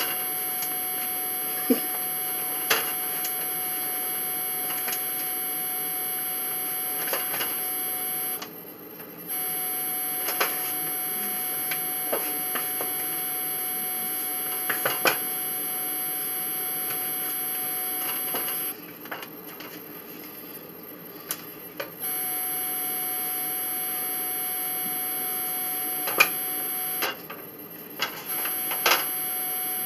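A steady electrical whine made of several high, fixed tones. It cuts out briefly three times, about a third of the way in, around two-thirds of the way in and near the end. A few soft knocks sound over it.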